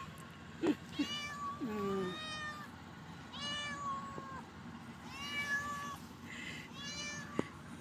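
Orange tabby cat meowing over and over, about five drawn-out meows in a row. The cat is very hungry and is begging for food.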